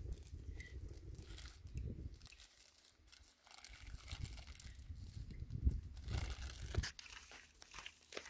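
Faint rustling and small clicks of hands handling cloth patching while preparing a double-patched round-ball load for a muzzleloading rifle, over a low gusty wind rumble on the microphone.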